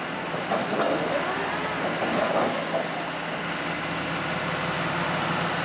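John Deere 250G excavator's diesel engine running steadily while its hydraulic auger attachment turns.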